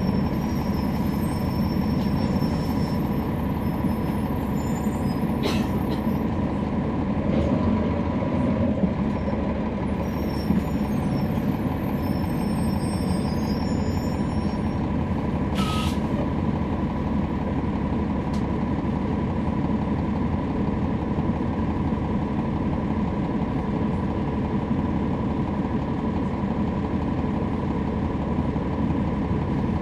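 Interior of a 2011 NABI 40-SFW transit bus heard from the rear seats: its Cummins ISL9 diesel and ZF Ecolife six-speed automatic transmission running, a steady low rumble with a constant mid-pitched whine, the transmission making most of the noise. A short burst of air hiss just past halfway.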